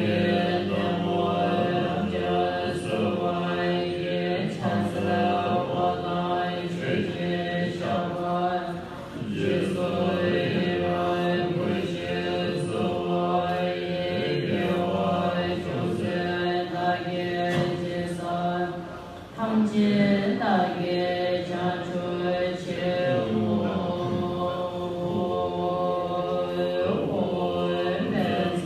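Tibetan Buddhist liturgical chanting of a long-life puja: many voices reciting together at a steady low pitch, with two brief lulls, about a third and two thirds of the way through.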